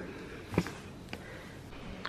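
Quiet room with one brief thump about half a second in and a fainter click a little later.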